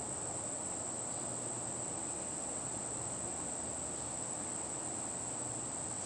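Insects trilling in one steady, unbroken high-pitched note, over a low even background rumble.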